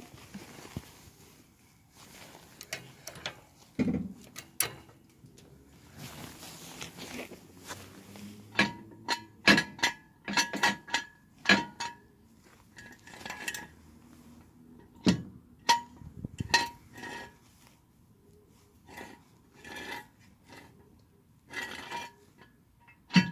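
Steel axle stands being set and adjusted under a raised van beside a trolley jack: a run of sharp metal clinks and knocks, many with a short ringing note, some in quick clusters.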